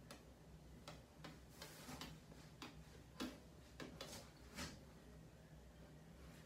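Near silence: room tone with a few faint, irregularly spaced clicks, about eight in all.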